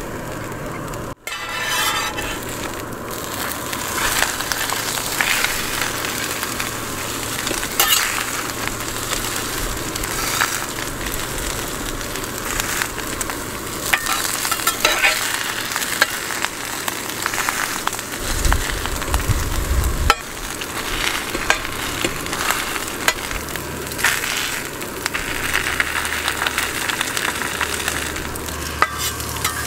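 Rice paper, egg and bean sprouts sizzling steadily as they fry in a stainless steel pan over a gas camping burner. Now and then a metal spatula scrapes and knocks against the pan as it is worked under the wrap to flip it.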